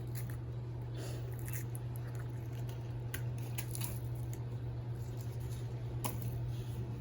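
Light, scattered crackling and rustling of cut dry leaves and crushed eggshell being handled and tipped into soil, over a steady low hum.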